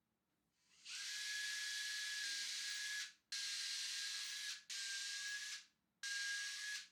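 Four bursts of high, even hissing, like a spray, each with a thin steady whistle running through it. The first lasts about two seconds and the others a second or so each.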